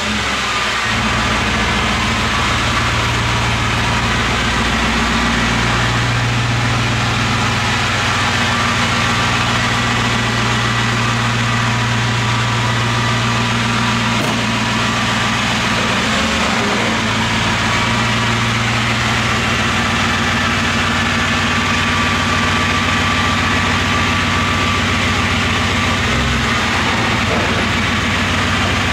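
2024 Mercedes-AMG G63's 4.0-litre twin-turbo V8 idling steadily through an Akrapovic Evolution titanium exhaust. Its low idle note shifts slightly a few times.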